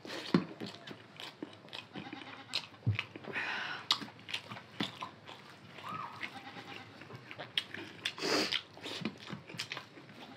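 Close-up eating sounds of two people eating rice and chicken by hand: chewing, mouth noises and light clicks of fingers against steel plates, with two louder, noisier sounds about three and eight seconds in.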